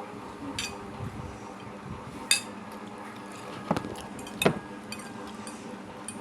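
Eating utensils clinking against a dish about four times, short sharp knocks with a brief ring, the loudest a little past the middle, over a faint steady hum.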